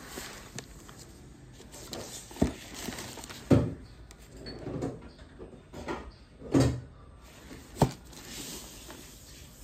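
A parcel in a plastic courier mailer being handled and turned over, its wrapping rustling, with four sharp knocks as it is set down and bumped on a wooden table.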